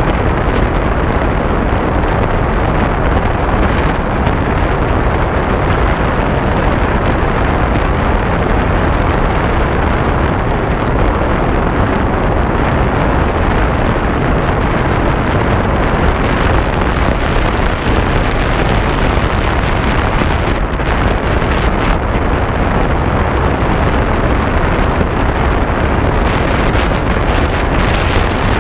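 Steady wind buffeting the microphone aboard a motorboat under way, a constant loud rush mixed with the sound of the boat running through the water.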